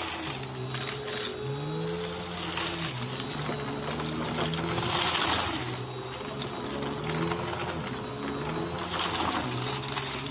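Upright vacuum cleaner running over a thick shag rug. Its motor hum rises and falls in pitch as the head is pushed and pulled through the pile, and debris is sucked up with crunching, rattling surges, loudest about five seconds in and again near the end.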